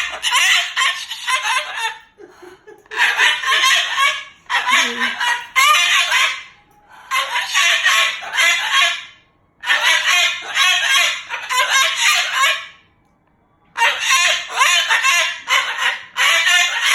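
Moluccan cockatoo giving loud, harsh calls in about six bouts of one to three seconds each, with short pauses between them.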